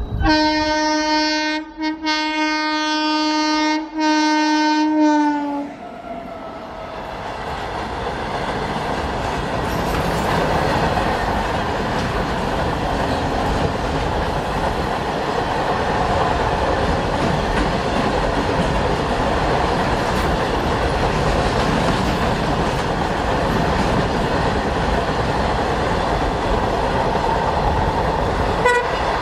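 A train horn blows three times in quick succession, each blast one steady pitch, the last ending about six seconds in. Then a long goods train of empty BOXN open wagons rolls past, a steady rumble and clatter of wheels on the rails that builds over a few seconds and holds.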